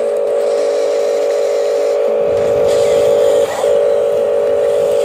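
Small electric motor and gearbox of an RC articulated dump truck whining at one steady pitch, cutting out briefly about three and a half seconds in, as it raises the loaded dump bed. A rougher low rumble joins about two seconds in.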